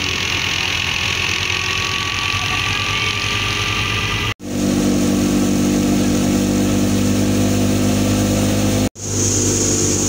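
Tractor engine driving a wheat thresher, running steadily. The sound drops out sharply twice, about four and nine seconds in, and after the first break the engine hum is heavier.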